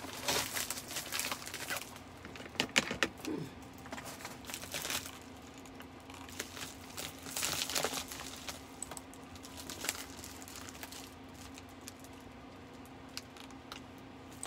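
Padded plastic mailer crinkling and rustling as it is handled, in irregular bursts that are busiest in the first few seconds and sparser later.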